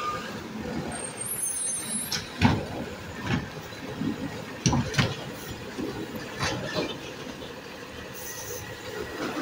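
Automated side-loader recycling truck running at the curb while its hydraulic arm grips a wheeled cart and lifts it. Several sharp clanks and knocks of the arm and cart, the loudest about two and a half and five seconds in.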